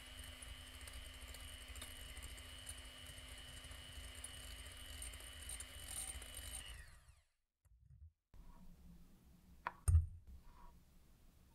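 Electric hand mixer running steadily as it whips instant coffee, sugar and water into a thick foam, then winding down and stopping about seven seconds in. A single sharp knock comes near the end.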